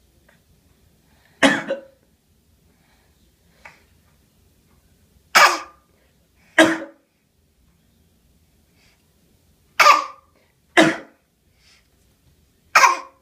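A baby girl giving short, forced fake coughs: six loud ones spaced a second to a few seconds apart, with one faint one between the first two.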